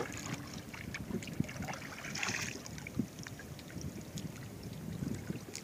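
Water lapping and sloshing against the hull of a small boat rocking on a choppy sea, with light knocks and a brief rush of water about two seconds in.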